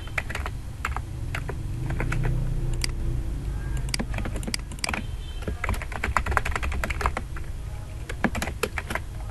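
Typing on a computer keyboard: scattered keystrokes at first, then quick runs of clicks in the second half, over a steady low hum.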